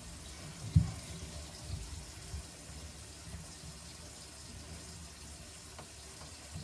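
Cold water running from a bathroom sink faucet into the basin, steady and fairly quiet, with one sharp knock about a second in.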